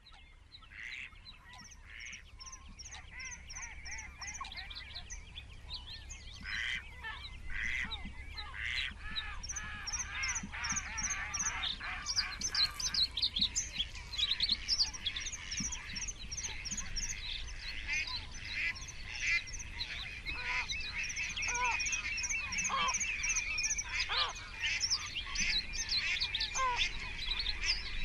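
A busy chorus of wetland birds calling over one another. It mixes calls in the middle range with quick runs of high chirps, and it grows denser and louder over the first dozen seconds.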